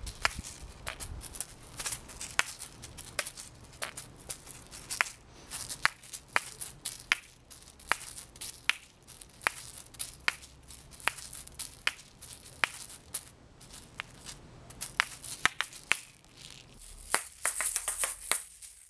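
Asalato, a pair of seed-filled shaker balls on a cord, being flipped around the fingers: irregular sharp clacks as the balls strike each other, over a dry seed rattle.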